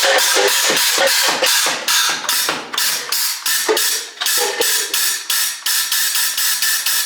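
Homemade compressor-fed Nerf blaster firing in rapid succession, each shot a short burst of compressed air, about three a second. The firing cuts off suddenly at the end.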